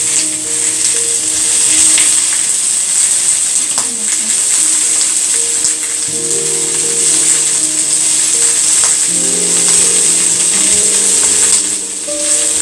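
Chicken legs frying in a pan, a steady sizzle, under background music with held notes.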